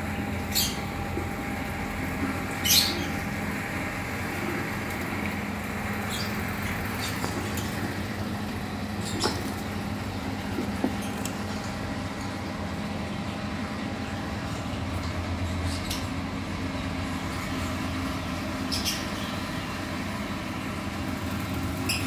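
Lovebirds giving a handful of short, high chirps, spread unevenly through the stretch, over a steady low hum.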